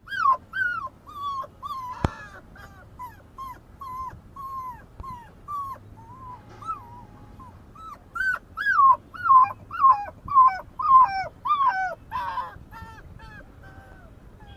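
A puppy whimpering in a run of short, high, falling whines, about two a second, louder and closer together in the last few seconds. There is one sharp click about two seconds in.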